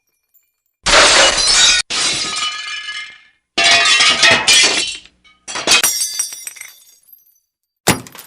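Glass shattering: a quick series of separate smashes, one every second or so, each trailing off in tinkling, ringing shards. The first smash cuts off abruptly.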